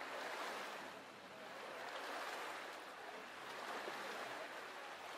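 Rushing, churning water after a waterskier's fall, an even wash of noise that swells and eases every second or two.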